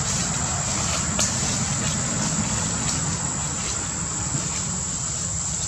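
Steady, high-pitched insect drone over a constant low rumble, with faint ticks now and then.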